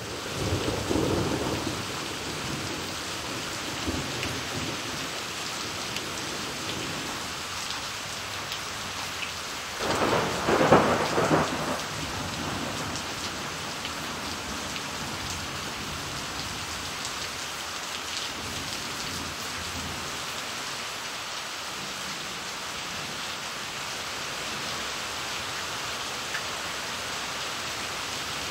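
Steady rain falling on paving and garden leaves, with a low rumble of thunder in the first two seconds and a louder roll of thunder lasting about two seconds, starting about ten seconds in.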